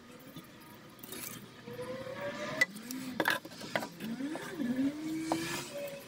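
A 12 mm H80 foam-core fibreglass shelf panel handled and knocked into place in a boat's locker, with four sharp knocks and light scraping. A wavering, rising and falling hum of a voice runs through it.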